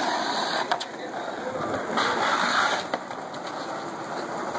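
Skateboard wheels rolling over concrete, a steady rolling noise with a couple of sharp clacks from the board.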